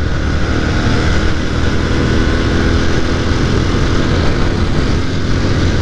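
Motorcycle engine running hard at speed through the gears, steady and loud, under heavy wind rush on the helmet-mounted microphone.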